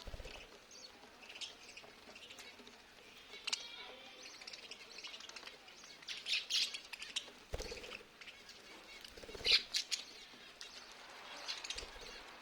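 Pet lovebirds chirping in short, scattered calls, the loudest a little after halfway, with two dull knocks in the middle.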